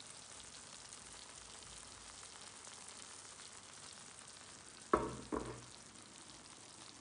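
Onions and eggs sizzling gently in butter in a pan on a hotplate. About five seconds in come two knocks as the pan is shifted on the hotplate.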